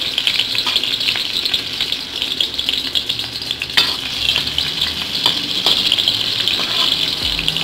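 Smashed garlic cloves sizzling in hot oil in a metal wok: a steady frying hiss, with a metal spatula scraping and tapping the wok now and then as the garlic is stir-fried until fragrant.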